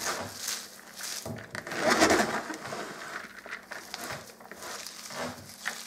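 Shredded cabbage and grated carrot rustling and crunching as hands toss and squeeze them in a plastic bowl: the vegetables being mixed by hand before salting for sauerkraut. The scrunches come irregularly, with a louder one about two seconds in.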